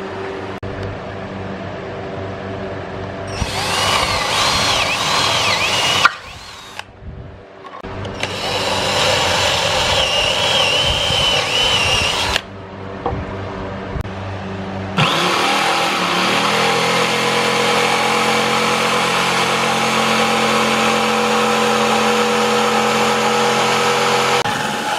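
Electric drill boring through plywood in several bursts, its whine wavering under load. About fifteen seconds in, a jigsaw's motor starts, its pitch climbing briefly, then runs steadily.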